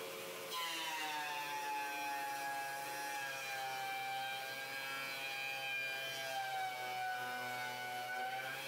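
Craftex CX125HC benchtop thickness planer cutting a pine board on a quarter-turn pass. About half a second in, the motor's whine sags in pitch as the board goes in, then wavers under load until the board clears at the end. The board hesitates as it feeds through the rollers, which the owner takes for a feed fault the warranty repair did not fix.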